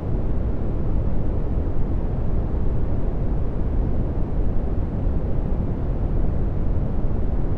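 Synthetic dark brown noise: a steady, deep rumbling hiss with most of its weight in the low bass and little treble.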